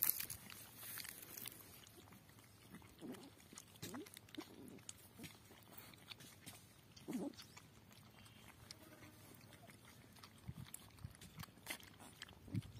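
Several puppies lapping buttermilk and chewing flatbread from a metal bowl. The sound is faint, made of scattered small clicks and slurps, with a few louder, lower sounds about three, four and seven seconds in.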